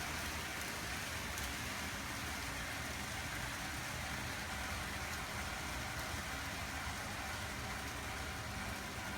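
TOMIX N-gauge model trains running on the layout's track: a steady rolling rumble of small wheels and motors.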